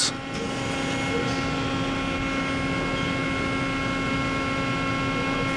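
Mori Seiki NL3000Y CNC turning center idling under power: a steady hum with several fixed tones and no change in speed.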